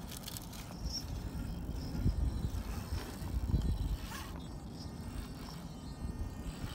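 Stock Gmade Komodo RC crawler creeping down bare rock, its small electric motor and gears running as the tyres scrabble over the stone, under an uneven low rumble.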